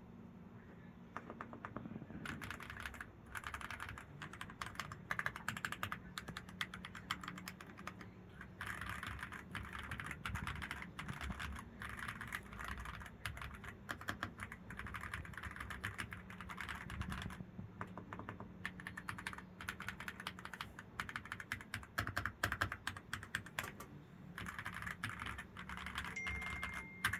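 Typing on a Keychron V1 8K Ultra mechanical keyboard: rapid runs of key clacks, with brief pauses about 8 and 24 seconds in.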